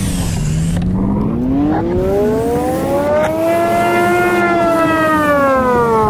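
Emergency vehicle siren wailing, its pitch sliding slowly low, then up to a peak about four seconds in, then back down near the end.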